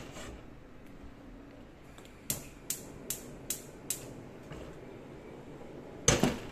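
Gas hob's spark igniter clicking five times in quick succession, about two or three clicks a second, then a louder knock near the end.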